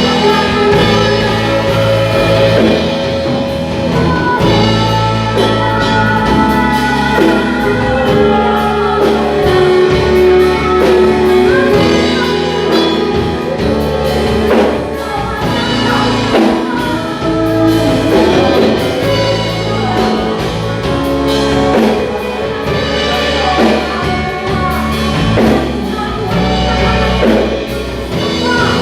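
Church worship band playing a praise song with singing, drums and bass.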